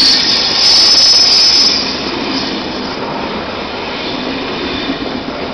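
ÖBB Railjet passenger coaches rolling past as the train pulls out, a steady rumble of wheels on rail. A thin high wheel squeal rides on top during the first couple of seconds, then fades as the rolling noise goes on a little quieter.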